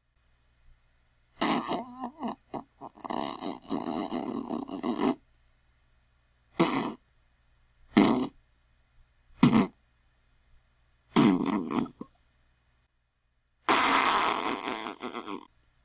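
A series of about six fart sounds with short silences between them. The first is long and sputtering, the next three are short blasts, and the last two are longer.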